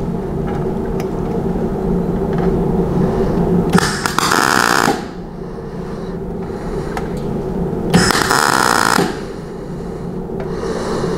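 MAG welder setting spot welds on overlapping car-body sheet steel: two crackling arc bursts of about a second each, about four seconds in and again about eight seconds in, over a steady hum.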